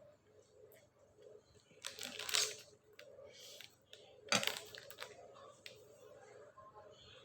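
Close-miked eating noises from a person eating black bean sauce noodles: two short, noisy bursts about two seconds apart, with faint clicks between them.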